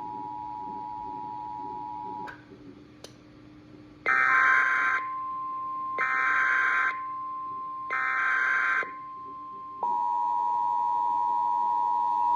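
Emergency Alert System tones: the two-tone attention signal stops about two seconds in, and after a short gap with two clicks come three bursts of the screeching SAME data header, about a second each. Under them runs the steady single-tone NOAA Weather Radio warning alarm, and the two-tone attention signal comes back in about ten seconds in.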